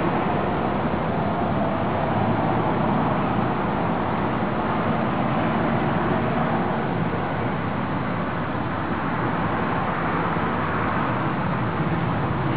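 Steady running of heavy engines, with a faint constant hum under an even wash of noise.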